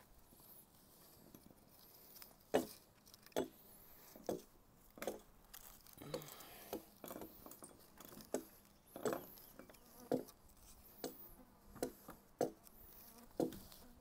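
Flat mule tape pulled and wrapped around aspen poles to tie off a lashing: short rasps of tape against wood about every second, with insects buzzing.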